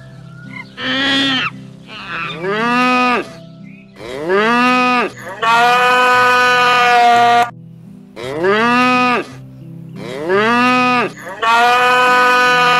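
Cattle mooing repeatedly: about seven calls, each rising then falling in pitch, most about a second long and two drawn out to about two seconds.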